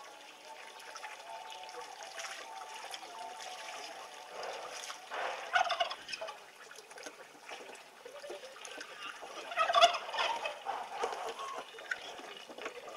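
Loud fowl-like bird calls, a cluster about five seconds in and another about ten seconds in, over a steady run of water into a wooden bath tub.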